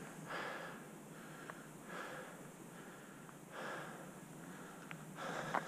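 A cyclist's breathing while riding: four soft breaths, about a second and a half apart, over a low steady hiss.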